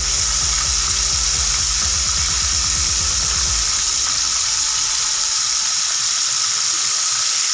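Flour-crumbed chicken breast pieces deep-frying in hot oil: a steady, loud sizzle.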